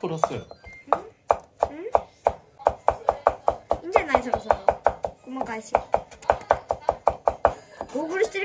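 Kitchen knife chopping food on a cutting board in rapid, even strokes, about five a second.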